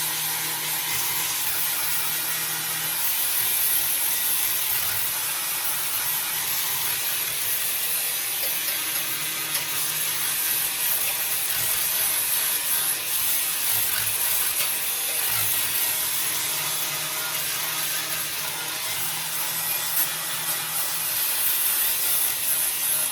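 Continuous abrasive rasping of a tool working metal, steady and without pauses, typical of sanding or grinding during body repair.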